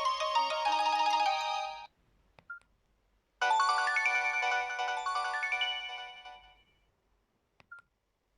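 Samsung Metro 350 (SM-B350E) mobile phone playing its built-in ringtones. One melody stops about two seconds in and a short beep follows. A second melody starts about three and a half seconds in and fades away by about seven seconds, and another short beep comes near the end.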